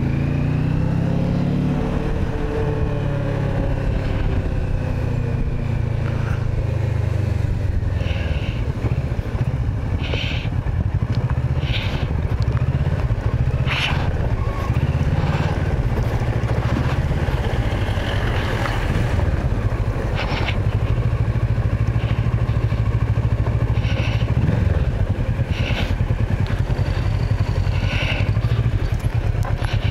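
Kawasaki Versys 650 parallel-twin engine running as the motorcycle is ridden. The engine note drops over the first few seconds as the bike slows, then rises and falls with the throttle. From about eight seconds in, a scatter of short sharp clicks and knocks rides over it.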